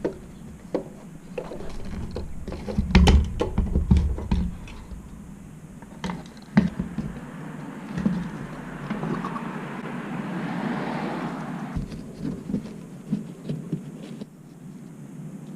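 Irregular metallic knocks and clatter of tools and parts being handled during car repair work, loudest about three to four seconds in, with a stretch of hissing noise from about nine to twelve seconds in.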